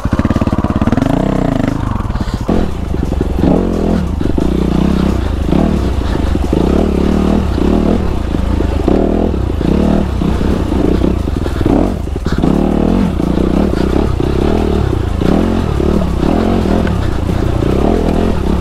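A 2019 Honda CRF250RX's single-cylinder four-stroke engine pulls away about a second in, then climbs a rocky trail in repeated bursts of throttle, the revs rising and dropping every half second or so, with an occasional knock from the bike.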